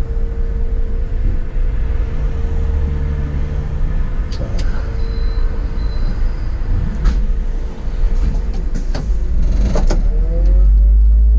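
City bus driving, heard from the driver's seat: a steady engine and road rumble with a constant whine, broken by a few sharp knocks or rattles. Near the end the rumble grows heavier and a whine rises in pitch as the bus speeds up.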